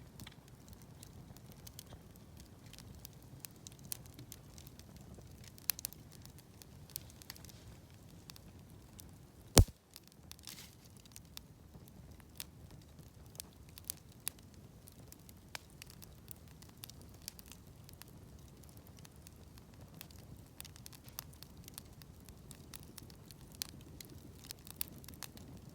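Wood campfire crackling, with scattered sharp pops over a low murmur and one loud crack a little under ten seconds in.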